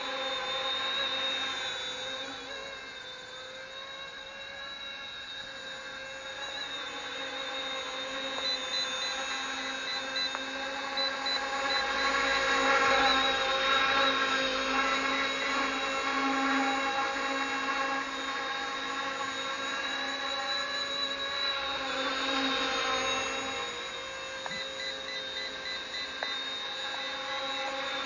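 RC ERA C190 model helicopter in flight: a steady whine of its motor and rotors, growing louder about halfway through, then easing off.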